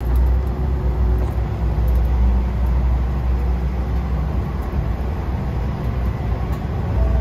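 Yamagata Railway YR-880 diesel railcar running as it moves off from the station, a steady low engine drone with running noise, heard from inside the car just behind the driver's cab.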